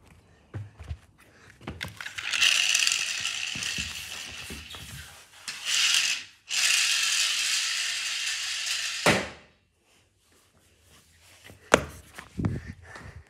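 Small toy car's gears whirring with a ratcheting buzz as its wheels spin, in three runs: the first fading over a few seconds, a short second one, and a steadier third that cuts off suddenly. A few knocks near the end.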